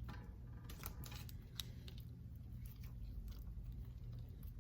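Slime being squished and stretched by hand for ASMR: faint, irregular sticky clicks and pops over a steady low hum.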